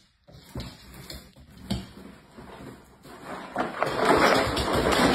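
Cardboard box scraping and rustling as a dog noses into it and lifts it with its head. A few light knocks come first, then a louder, steadier rustling scrape runs through the last second and a half.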